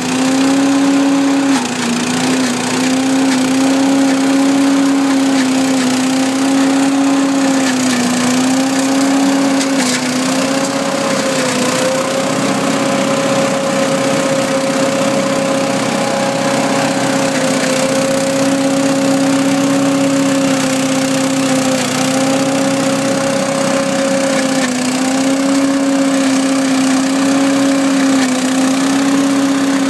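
Trailer-mounted Votex leaf vacuum running: its petrol engine holds a steady, high speed over the rush of air through the fan and hose, the engine pitch dipping briefly several times.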